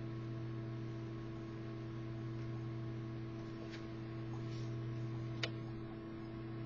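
Steady electrical hum with a few faint ticks and one sharp click about five seconds in.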